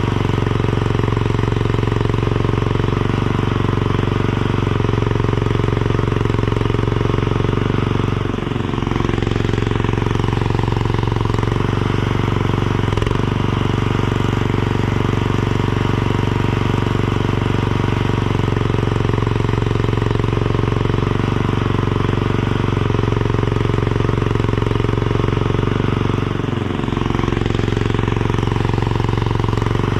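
Mini skid steer engine running steadily at high revs while digging. Its pitch sags briefly twice as it takes load, once about eight seconds in and again near the end.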